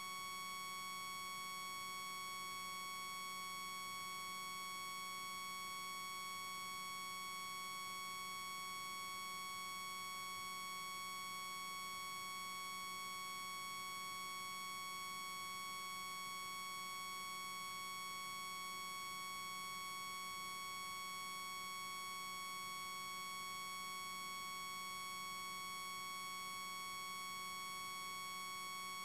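Steady electronic whine made of several fixed high tones and a low hum, unchanging in pitch and level: interference noise in the recording that covers the park's own sounds.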